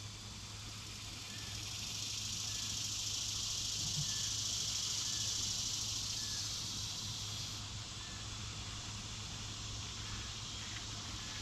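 Insects buzzing outdoors: a steady high hiss that swells over the first couple of seconds and eases after about seven seconds, with a faint short chirp about once a second.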